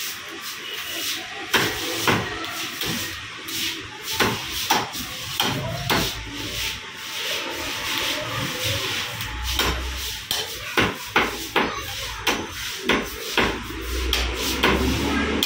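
Heavy butcher's knife chopping raw chicken into small pieces on a chopping block: a long run of sharp chops, about two a second.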